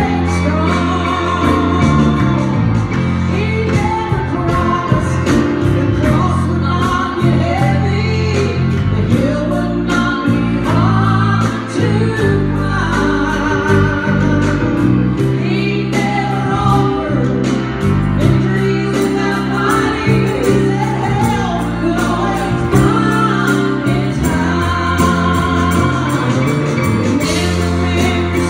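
Live gospel singing: a woman sings through a microphone over piano accompaniment with a steady beat.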